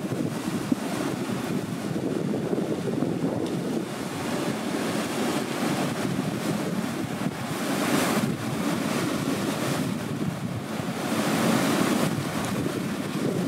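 Strong blizzard wind blowing steadily in gusts, with heavy wind rumble on the microphone. It swells into louder gusts about eight seconds in and again around eleven to twelve seconds.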